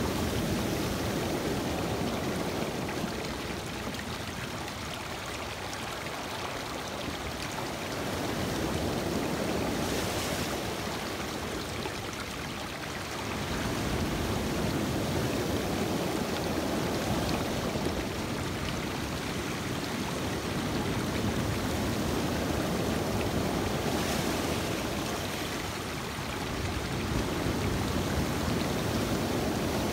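Lake waves washing in over a rocky shore, water rushing and trickling among the stones. The sound swells and eases every few seconds as each wave comes in and drains back.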